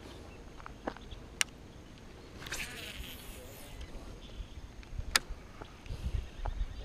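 A flying insect buzzing close by for about a second near the middle, over a low outdoor background. Two sharp ticks, about a second and a half in and again about five seconds in.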